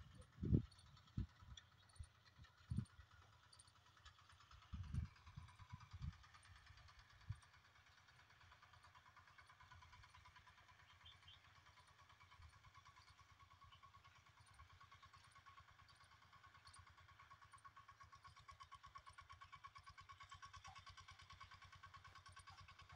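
Faint, steady running of a small tractor's engine in the distance, a pitched hum with a fast pulse that starts about six seconds in and grows slightly louder near the end. A few low thumps on the microphone come before it.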